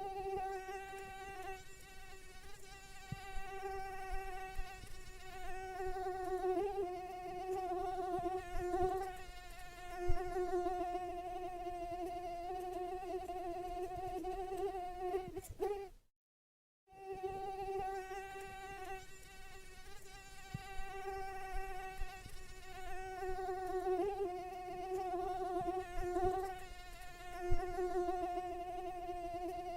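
Mosquito whine: a steady, high buzz whose pitch wavers slightly. It breaks off for about a second of dead silence about halfway through, then resumes.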